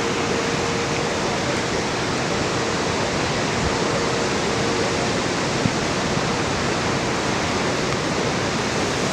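Steady, unbroken rush of storm wind and heavy surf from an approaching hurricane, with a faint steady hum through the first half.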